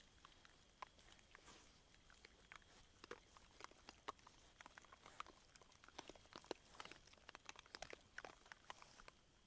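Wild boar chewing and crunching maize kernels: faint, rapid, irregular crunches that grow denser about three seconds in.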